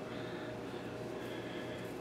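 Quiet workshop room tone: a faint, steady background hum with no distinct sounds.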